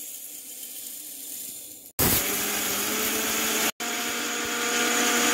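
Roasted urad dal pouring into a steel mixer-grinder jar with a steady hiss; about two seconds in, the electric mixer grinder starts suddenly and runs steadily, grinding the dal to flour. It cuts out for a moment partway through, then runs on.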